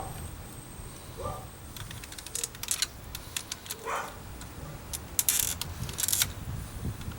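Small plastic clicks and scraping as a flat-blade screwdriver pries the power window switch's retaining clips out of the plastic door bezel, with two short squeaks.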